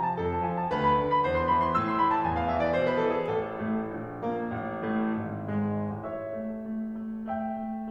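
Slow, gentle piano music: a melody of struck notes that steps downward, then settles on a held low note over quieter chords near the end.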